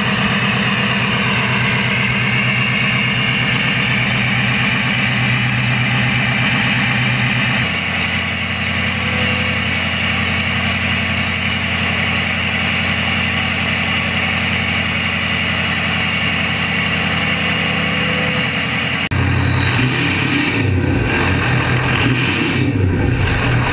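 Ford 6.0 Power Stroke V8 turbo-diesel running with a KC Turbos 10-blade turbocharger. About eight seconds in it is held at raised engine speed, and a steady high turbo whistle sits over the engine note. Near the end it is revved a few times, the turbo whistle rising and falling with each rev.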